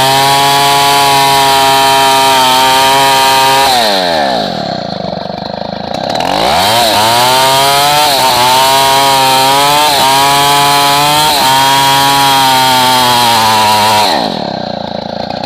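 Stihl 070 two-stroke chainsaw running at full throttle, cutting kerfs into a hardwood log. About four seconds in it drops back toward idle, revs up again around six and a half seconds, cuts on with a slightly wavering pitch under load, and drops off again near the end.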